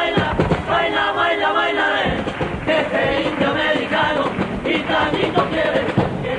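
A Cádiz carnival chirigota singing in unison chorus, holding a long chord for about the first two seconds and then singing on, with drum beats and guitar underneath.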